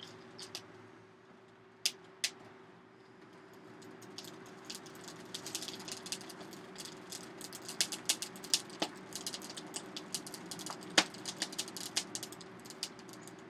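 Coal fire in a hand-cranked Canedy-Otto forge catching, with a steady blower hum under irregular crackling and clicking that grows denser from about four seconds in.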